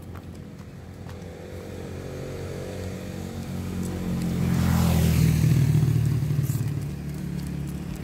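A motor vehicle passing close by, its engine growing louder to a peak about five seconds in and then fading away.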